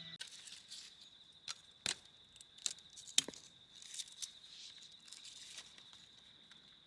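A handful of sharp clicks and knocks with some rustling, over a steady high-pitched tone.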